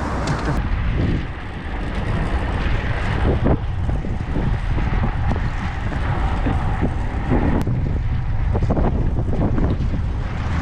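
Wind buffeting the microphone during a bicycle ride, a steady low rumble and rush that surges and dips.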